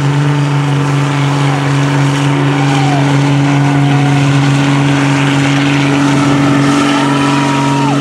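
Cummins turbo-diesel inline-six in a Dodge Ram mud truck running at steady high revs under heavy load, held without letting off as the truck churns through deep mud on tractor tires.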